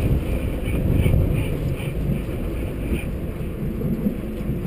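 Wind buffeting the microphone as a steady low rumble, with faint light ticks about twice a second during the first three seconds.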